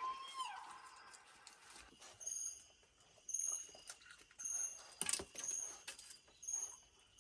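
A short high chirp repeating about once a second, typical of a night-forest animal call. A lower call bends down near the start, and there are two sharp knocks a little after five seconds in.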